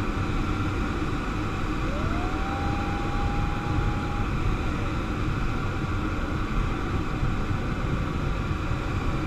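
Steady rush of airflow heard inside the cockpit of a Nimbus 3D sailplane in unpowered gliding flight. About two seconds in, a thin tone glides up in pitch and holds for about two seconds.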